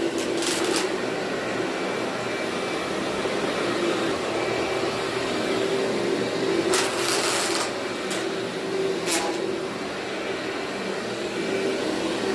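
Vacuum cleaner running steadily over carpet with a constant hum, with short crackles of debris being sucked up about seven and nine seconds in.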